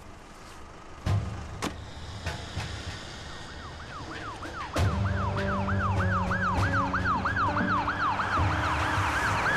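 Police car siren in a fast yelp, rising and falling about three times a second, starting a few seconds in after a few sharp knocks. A louder low rumble joins under the siren about halfway through.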